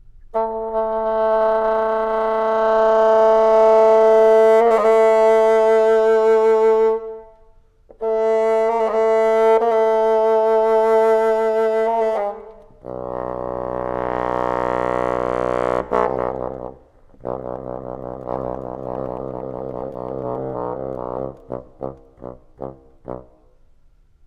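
Solo bassoon playing. It holds two long notes at the same pitch, each a few seconds long, then moves to lower, buzzier sustained notes. It ends with a quick string of short, detached notes.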